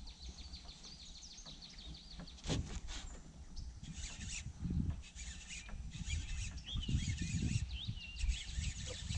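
Wild birds chirping and calling: a rapid run of high chirps in the first two seconds, then many varied short calls through the rest. Low rumbling and a few soft knocks sit underneath.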